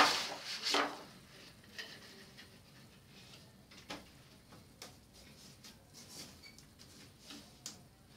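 Thin plastic diffuser film from an LED TV backlight rustling loudly as it is lifted and laid down, then faint light taps and rustles as it is smoothed and pressed onto the panel frame.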